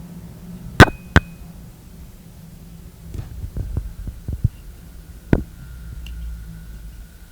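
Homemade AM radio kit's speaker giving a steady low hum, with sharp clicks and knocks as the set is handled, and a faint steady high whistle coming in about three seconds in.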